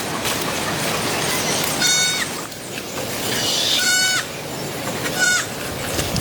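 An animal calling three times, each call short and bleat-like, over a steady hiss.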